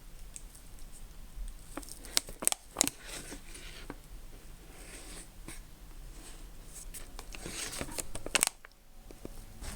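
Firework fountain crackling and hissing: scattered sharp crackles with a few louder cracks about two to three seconds in, and a spraying hiss that builds toward the end, dips briefly, then picks up again.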